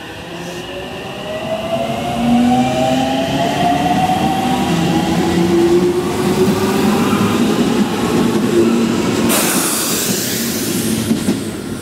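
Aichi Loop Railway 2000 series electric train pulling away from the platform and accelerating. Its traction motors whine in several tones that rise slowly in pitch, over a steady rumble of wheels on rail. About nine seconds in, a loud hiss starts and lasts about two seconds.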